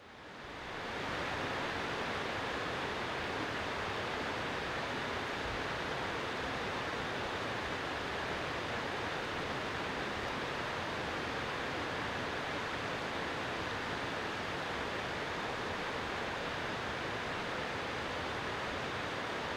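Steady outdoor ambience: an even rushing noise that fades in during the first second and then holds level, with no distinct events.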